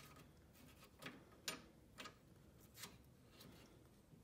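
Faint, irregular metal clicks, about one every half second to a second, as a wrench works the nut on a walk-behind mower's wheel axle.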